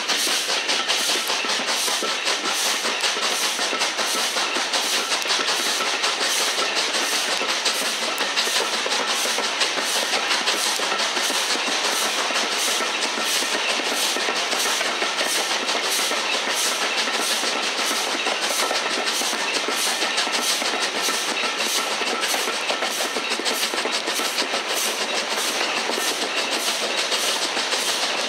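LMS Black Five 4-6-0 steam locomotive 45428 and its train running at speed, heard from an open carriage window: a steady rush of noise with an even, repeating beat.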